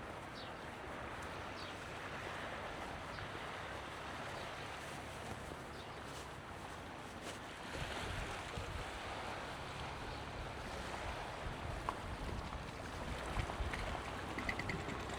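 Seaside ambience: waves washing on the shore, with wind buffeting the microphone and a low rumble growing stronger about halfway through.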